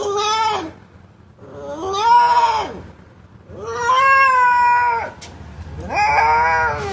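A young puppy crying in four long, drawn-out cries, each arching up in pitch and falling away, about a second apart. It is the crying of a frightened, shivering puppy just after a bath.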